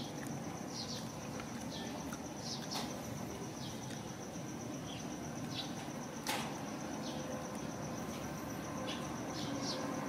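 Outdoor ambience: a steady high insect buzz with scattered short, high bird chirps, and a single sharp click about six seconds in.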